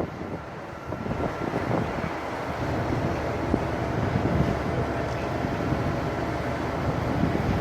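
Wind buffeting the microphone on the deck of a cruise ship under way, a gusting low rumble with a steady noisy haze behind it.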